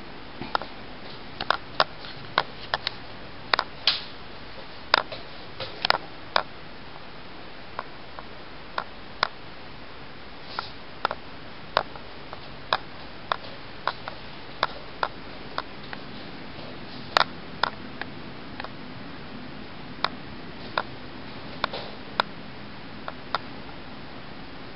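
Sharp, irregular clicks and taps, roughly one or two a second, over a steady background hiss; a faint low hum comes in about two-thirds of the way through.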